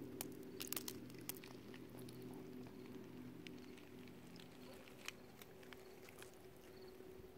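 Faint handling noise from a phone being moved: scattered light clicks and knocks, most in the first second or so and one near the middle, over a faint low steady hum.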